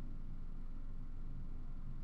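Quiet room tone: a steady low hum with no distinct sounds.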